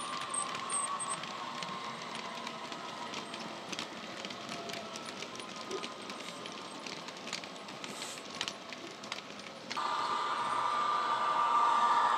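Model railway wagons clicking and rattling over the track as a rake of box wagons passes, under a faint diesel engine sound from the Bachmann Class 66's sound decoder. About ten seconds in, the sound cuts suddenly to a louder, steady engine sound.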